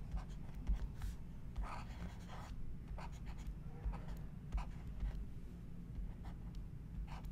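Pen stylus scratching and tapping on a drawing tablet in short handwriting strokes, over a low steady hum.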